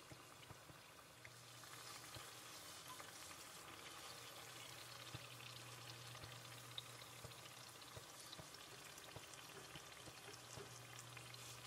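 Faint sizzle of bánh tiêu dough rounds deep-frying in hot oil, with small pops and crackles scattered through it; it grows a little louder about two seconds in. A low steady hum runs underneath.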